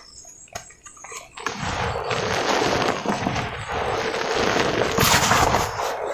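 Hands crushing lumps of dry cement, the crumbled chunks and powder pouring down in a dense gritty crackle. A few soft clicks come first; the crumbling starts about a second and a half in and is loudest near the end.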